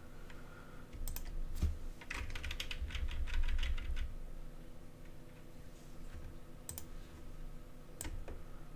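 Computer keyboard keystrokes and clicks: a quick run of keypresses from about two to four seconds in, with scattered single clicks before and after, over a faint steady hum.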